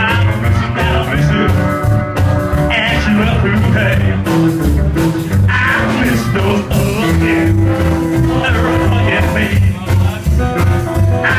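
Rockabilly band playing live: upright bass, drums, acoustic guitar and electric guitar, with a steady driving beat.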